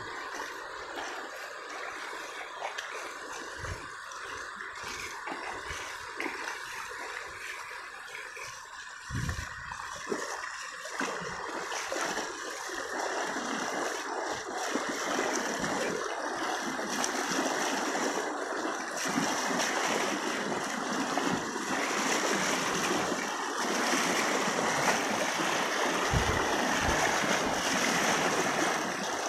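Shallow river water rushing fast over sand, a steady gush that grows louder in the second half, with a few dull low thumps.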